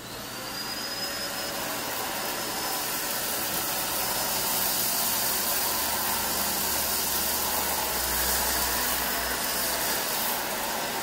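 Dyson DC21 canister vacuum starting up, its motor whine rising into a steady high tone within the first second, then running with a steady rush of air as its hard floor tool sucks up rice and dirt from a hard floor.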